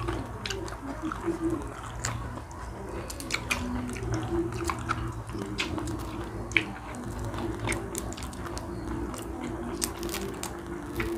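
Close-up eating sounds: chewing and mouth smacking, with scattered sharp clicks and crackles as cooked shrimp are peeled and bitten by hand.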